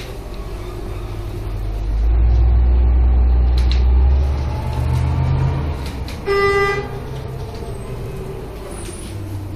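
Van Hool AG280 articulated bus running, heard from inside its trailer section: its low rumble grows louder from about two seconds in, holds for a couple of seconds, then eases. Past the middle a vehicle horn toots once, briefly.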